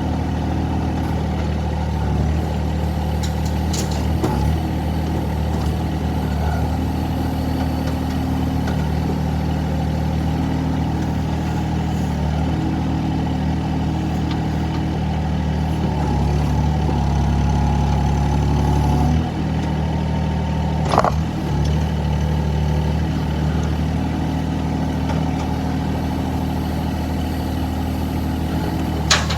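Excavator diesel engine running steadily, with a stronger stretch about two-thirds of the way through as it takes load. Three sharp knocks stand out: near the start, about two-thirds in, and at the very end.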